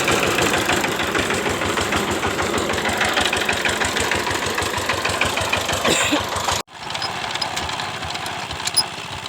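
Single-cylinder 12 hp Chinese diesel engine of a power tiller running with a fast, even knocking beat, the extra noise that the owner traces to the governor gear under the side cover. About six and a half seconds in the sound cuts off abruptly, and a quieter running sound follows, with a sharp click near the end.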